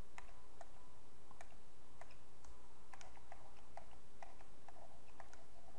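Light, irregular clicks of a stylus tapping and stroking on a pen tablet while handwriting, a few clicks a second, over a steady low hum.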